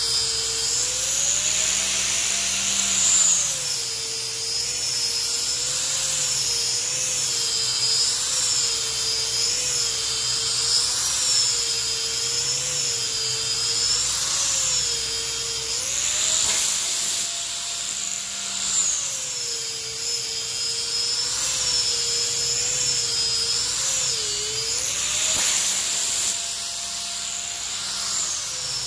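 Handheld rotary sander with a sanding disc, running against a pine tabletop. Its motor whine wavers as it is worked over the wood, and rises in pitch for a couple of seconds three times: about two seconds in, just past the middle, and near the end.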